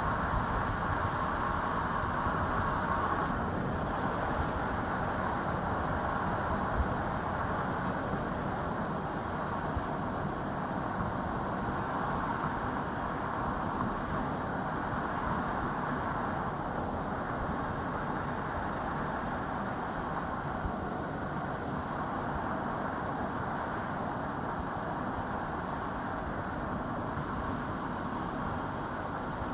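A car driving along a country road: steady tyre and engine noise. A few faint high chirps come about eight seconds in and again around twenty seconds.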